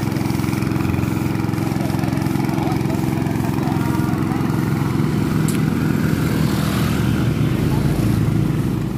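Small petrol-engine portable water pump running steadily, pumping water through hoses to wash mud off the road.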